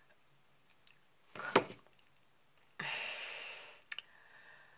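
A woman's breathing between sentences: a quick noisy breath with a mouth click about a second and a half in, then a long breath lasting about a second that fades away.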